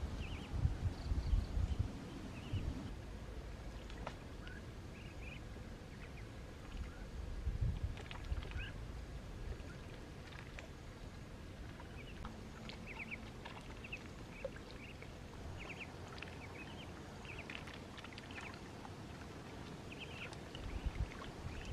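Ducks and ducklings swimming in shallow pond water, with low splashing and paddling sounds in the first few seconds, again about eight seconds in, and near the end. Short high peeping chirps come throughout.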